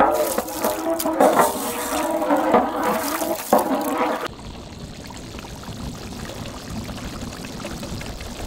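Water sloshing and splashing in a cooking vessel, with brinjal and rock salt being mixed in, for about four seconds. It stops abruptly and gives way to a quieter, even background.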